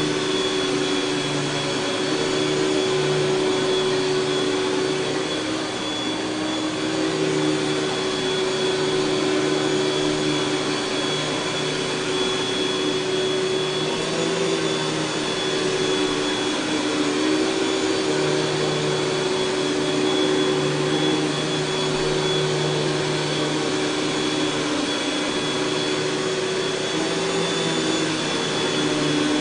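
Panasonic Jet-Flo MC-6210 upright vacuum cleaner running steadily, its motor making a constant rushing whine with a few steady tones.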